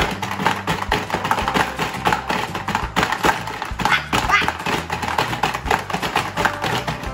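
Hungry Hungry Hippos game clattering: plastic hippo levers slammed down over and over, the jaws snapping and marbles rattling across the plastic board in a fast, dense run of clacks.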